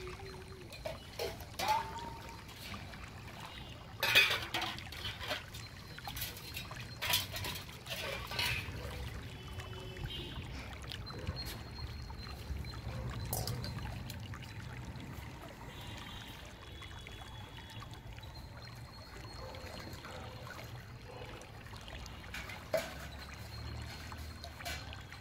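Water trickling and pouring in stainless steel vessels, with occasional sharp clanks of steel pots and bowls set down or knocked together, the loudest about four seconds in, some ringing briefly.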